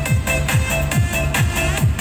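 Electronic dance music with a steady beat, the kick drum hitting about twice a second under repeating synth notes.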